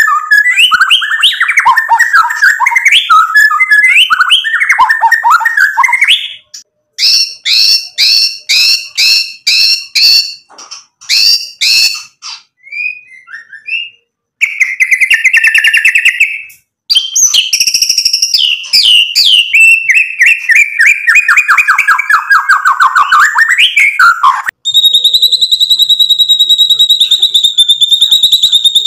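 White-rumped shama (murai batu) singing a loud, varied song. It opens with fast warbling, then gives a run of sharp repeated notes, a short buzzy rattle, and a long series of notes falling in pitch. Near the end it holds a high, rapid trill for about four seconds.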